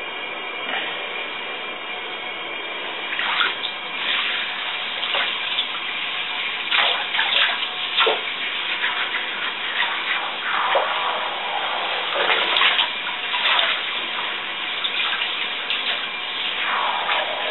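Hand-held shower sprayer running water over a dog in a bathtub: a steady spray hiss, with irregular louder splashes as the water hits the wet coat and the tub.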